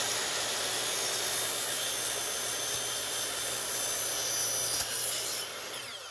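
Miter saw (chop saw) running and cutting through a cellular shade's headrail and fabric stack. Near the end the trigger is released and the motor winds down with a falling whine.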